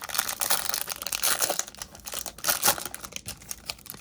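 A trading card pack's wrapper crinkling and tearing as it is ripped open by hand: a dense, continuous crackle made of many small sharp crinkles.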